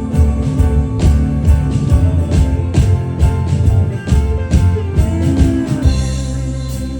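Live band playing an instrumental break between verses: guitar over bass and drums. The drum hits stop about six seconds in, leaving a held chord ringing.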